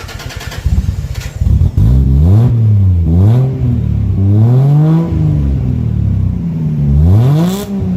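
Turbocharged 1JZ inline-six in a Toyota Cressida cranks briefly and catches, then is revved up and back down four times, exhaling through a Banks diesel muffler. The muffler is only clamped on, not yet welded, so the exhaust may be leaking.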